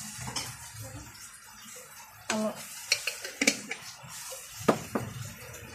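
A few sharp clinks and knocks of a glass jar and crockery being handled on a kitchen counter, about four in all, the loudest near the end, with a short murmur of voice about two seconds in.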